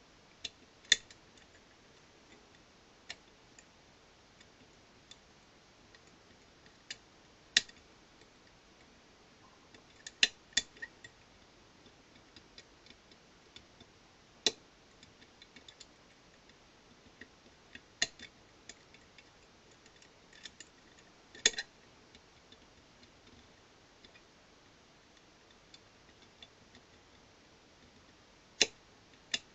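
Sparse, irregular metallic clicks of a lever-lock pick working inside an ERA Invincible 5-lever British Standard mortice lock, lifting the levers one at a time. Quiet between clicks, with about a dozen sharper clicks spread unevenly throughout.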